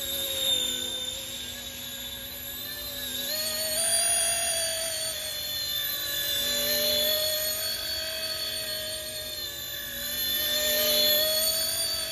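Small RC scale helicopter in flight: a high whine from its motor and rotor that glides up and down in pitch as the throttle changes. It grows louder about four seconds in and again near the end.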